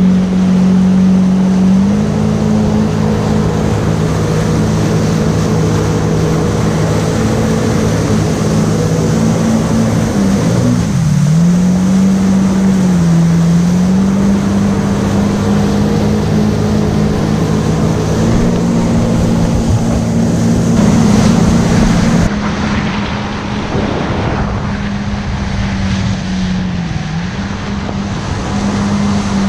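Yamaha WaveRunner personal watercraft running at speed: a steady engine drone over rushing water spray and wind. The engine note dips briefly a few times as the throttle is eased, then comes back up.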